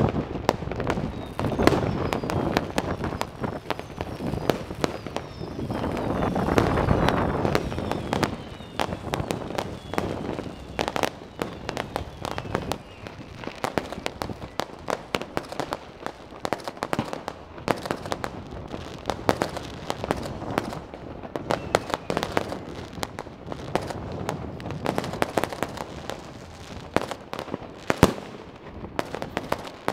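Many fireworks and firecrackers going off at once, a dense crackle of bangs and pops, with a few falling whistles in the first few seconds and one loud bang near the end.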